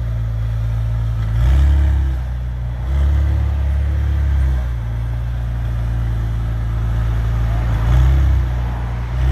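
McLaren 600LT Spider's twin-turbo V8 idling through its top-exit exhausts with a deep, steady rumble, swelling briefly about a second and a half in, again around three seconds, and near the end.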